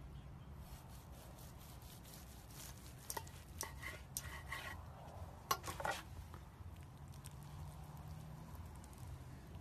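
A large knife slicing through the crusty bark of a smoked meatloaf onto a wooden cutting board: faint crunching and scraping, with a few sharper clicks about five and a half seconds in, over a low hum.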